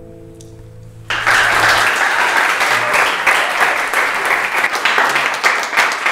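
An acoustic guitar's last chord ringing and fading away, then about a second in a small audience breaks into loud applause and clapping.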